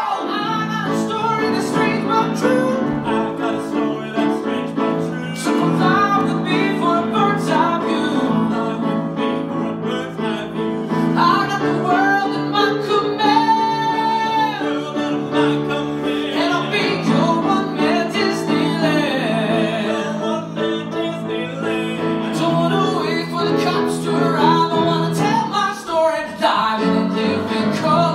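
Live stage band playing an upbeat show tune, with a male singer's voice over it.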